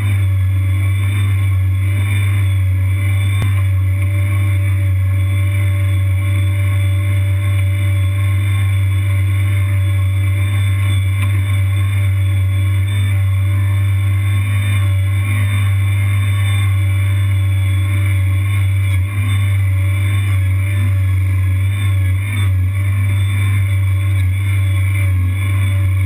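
Tracked Kanga Kid mini skid steer's engine running loudly at a steady speed, heard close up from on the machine, with an even low hum and only small dips in level.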